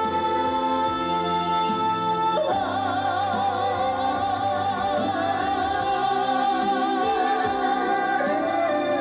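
Live slow trot song with band accompaniment: one steady held note, then from about two and a half seconds in a long melody note sung or played with a wide vibrato.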